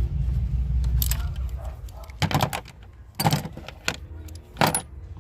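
Sharp metallic clicks and clinks of hand tools on fasteners, about five separate strikes spaced irregularly, from a 5/16 socket being worked on the bolts of an air intake duct. A low rumble sits under the first couple of seconds.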